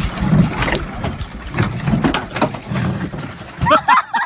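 A canoe knocking and bumping against a wooden dock as a man climbs in and it tips over into the water, with splashing. A voice cries out near the end.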